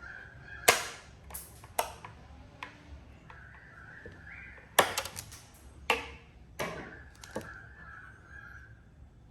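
Hard plastic parts being handled during assembly, giving a series of sharp clicks and knocks, about seven in all, with a faint squeaky whine between them.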